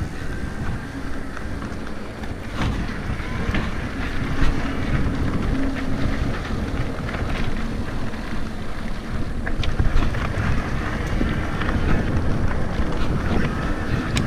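Wind buffeting a helmet-mounted action camera's microphone during an electric mountain-bike ride, over the rumble of tyres on a dirt trail, with scattered knocks from the bike jolting over the ground.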